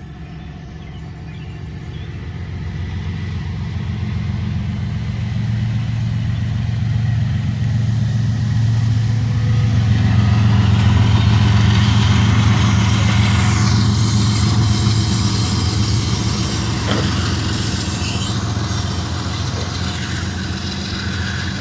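Diesel freight locomotives approaching and passing with a steady low engine rumble that grows louder over the first ten seconds or so and stays loud as the freight cars begin to roll by.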